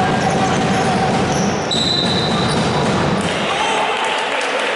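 Basketball being dribbled on a hardwood court amid the general din of a game. A short, high referee's whistle blast sounds about two seconds in, and play stops.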